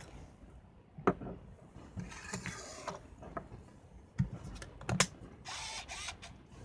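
Plastic clicks and handling of a Canon Autoboy Epo compact film camera as the film cartridge is taken out and the film door is shut, latching with a sharp snap about five seconds in. A short mechanical whir of the camera's film-transport motor follows the snap.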